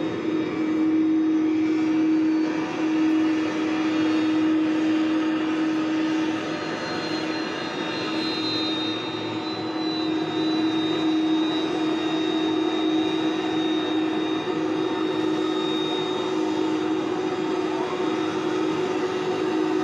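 Jet engines of an Airbus Beluga ST cargo plane running at taxi power: a steady drone with a constant hum, joined about a third of the way in by a high whine.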